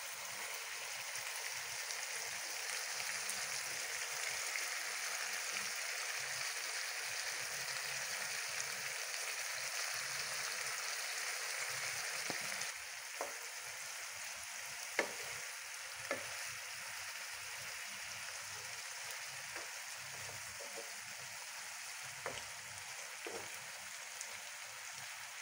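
Shrimp and their soaking juice sizzling in butter in a hot skillet, a steady frying hiss that eases a little about halfway. In the second half a utensil knocks against the pan a few times as the shrimp are stirred.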